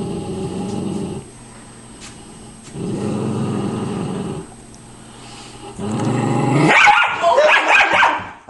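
Dog growling in three long, low rumbles with short pauses between, then a louder, sharper burst of snarling near the end. It is a warning growl from a dog guarding her Christmas gift from a person reaching for it.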